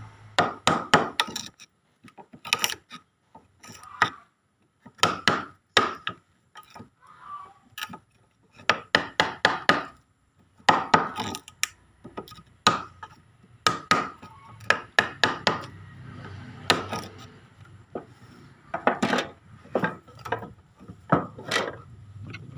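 A wood chisel being struck by hand to cut a mortise in a timber frame: sharp knocks into the wood, in quick runs of several blows with short pauses between them.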